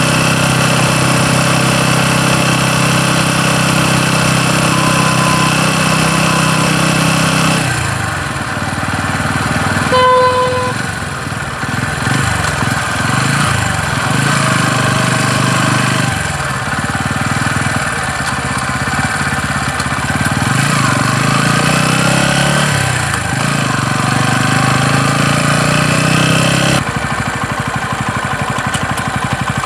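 TVS Ronin 225's single-cylinder engine running, its note changing a few times. The owner is recording it to show a knocking noise from the engine, which the service centre says is common to all Ronins.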